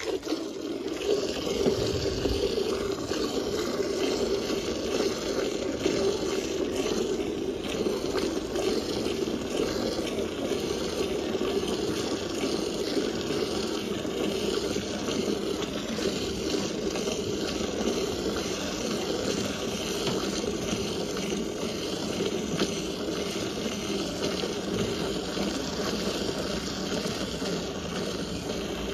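Milk squirting from a sheep's teats into a steel pail already partly full of foamy milk as the sheep is milked by hand: a steady hissing splash of milk streams.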